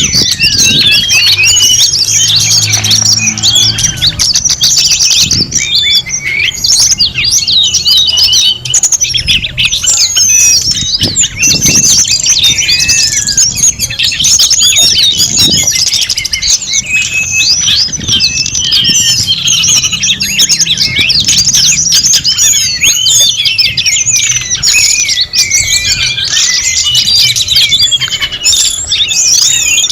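Dense chorus of many birds chirping, whistling and squawking over one another without a break.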